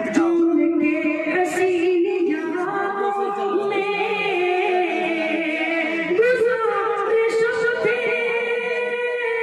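A man singing a sad Urdu ghazal in tarannum into a stage microphone, drawing out long, sliding held notes; the melody steps up to a higher note about six seconds in.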